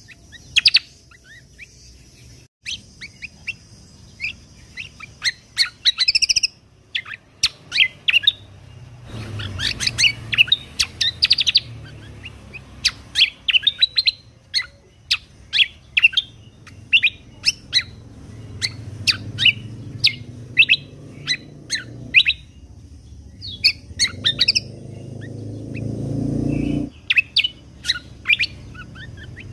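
A kecial kombok (cucak kombo) songbird singing a rapid run of sharp, high chirps and short trills, the fast "tembakan" bursts prized in contest birds. A low rumbling noise rises under the song twice, about ten seconds in and again near the end.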